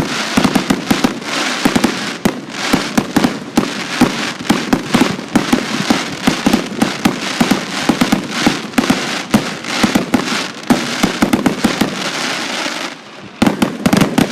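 Fireworks going off in a dense barrage: many sharp bangs a second over steady crackling. The barrage thins briefly near the end, then a few more loud bangs follow.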